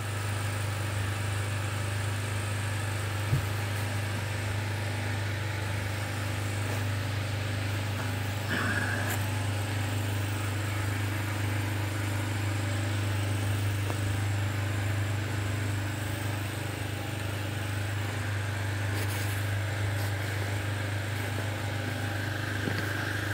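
Ponsse Ergo forest harvester's diesel engine idling steadily with a low, even hum while the machine stands.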